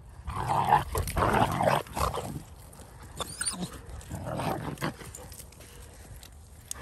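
Dalmatian mother and puppies playing rough: short, noisy dog vocalisations and scuffling in the first two and a half seconds, and again about four seconds in.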